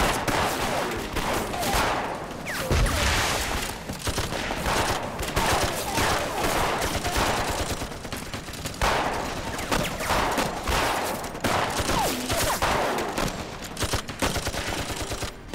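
Dense, continuous gunfire in a film battle: rifles and a heavy machine gun firing in rapid overlapping shots, a sustained fusillade.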